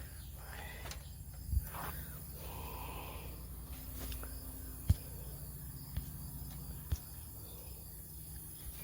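A few sharp metallic clicks and taps from hand tools working a carburetor mounting bolt that will not thread, the loudest about five seconds in, over steady low background noise.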